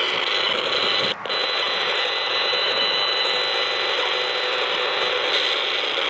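Audio output of an HF35C RF analyzer turning the cell tower's radio-frequency signals into a steady electronic buzz with a high whine. It cuts out briefly about a second in.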